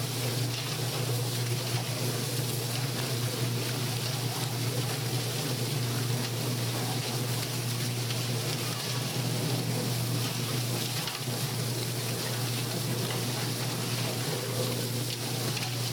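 Chicken plucking machine running steadily as it strips the feathers from a bird: a constant low motor hum under a steady rushing, watery noise.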